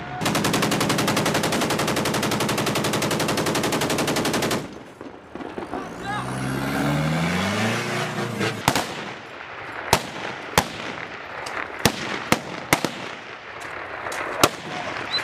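A long, rapid machine-gun burst of about four and a half seconds. A droning sound then rises in pitch, followed by single gunshots spaced a second or so apart.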